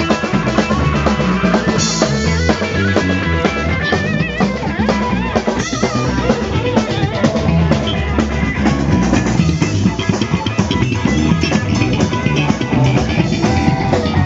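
Rock music played on drum kit and guitar, with a steady beat.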